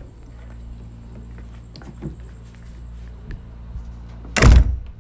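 Steady low hum of a small room with a few faint light ticks, broken by one loud, short thud about four and a half seconds in.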